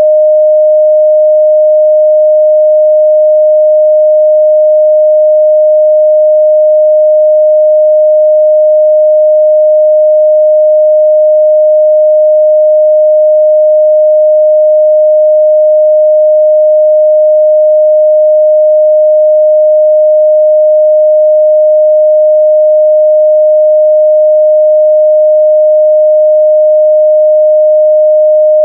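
A steady, loud 614 Hz sine-wave test tone, one pure pitch held unchanging.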